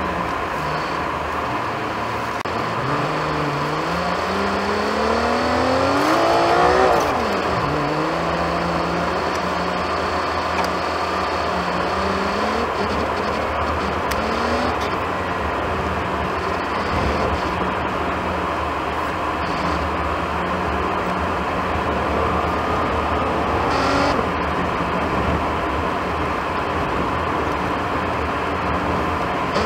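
Car engine and road noise heard from inside the cabin. The engine pitch climbs for a few seconds as the car pulls away, drops sharply at a gear change about seven seconds in, then holds steady as the car drives along the snow-covered road.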